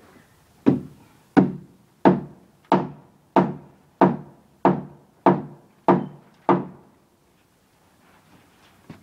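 Hammer driving a nail into wooden wall framing: ten even blows about two-thirds of a second apart, stopping about two-thirds of the way through.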